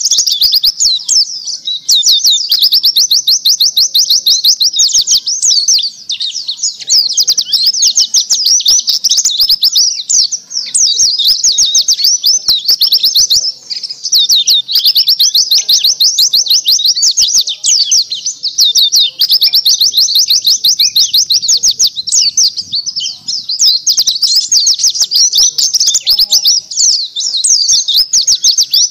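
Pleci dakun (white-eye) singing a long, fast, high-pitched twittering song of rapid trilled notes, broken by short pauses every few seconds: a bird in full, continuous song ('gacor').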